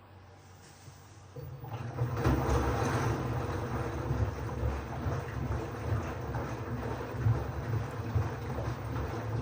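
LG FH0B8LD7 front-loading washing machine starting its wash cycle. About a second and a half in, a low steady hum and a loud rushing noise set in and run on.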